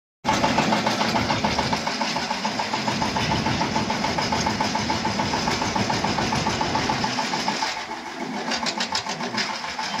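Diesel engine of a Volvo crawler excavator running steadily, with a fast, even beat. About eight seconds in the engine sound thins and a run of sharp, high clicks follows.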